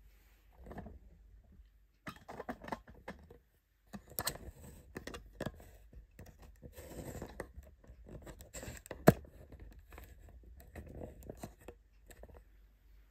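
Irregular rustling and scraping handling noises with scattered clicks, and one sharp click about nine seconds in.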